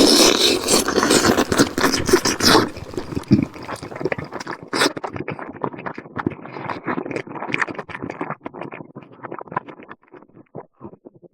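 Close-miked eating sounds: wet chewing and lip smacking, loud and dense for the first two and a half seconds, then a quicker run of small smacks and clicks that grows quieter toward the end.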